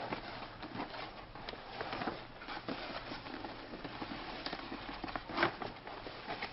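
Rustling and crinkling of a nylon softbox with a silver reflective lining being opened out and handled, with a few light taps; a louder rustle about five seconds in.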